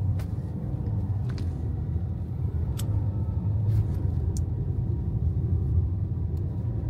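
Steady low rumble of a moving vehicle's engine and road noise, heard from inside the vehicle, with a few faint clicks.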